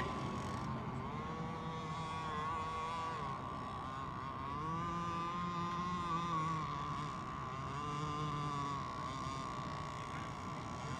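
Radio-controlled racing boats running at speed across the water: a steady whine whose pitch wavers up and down, with lower tones rising and falling beneath it.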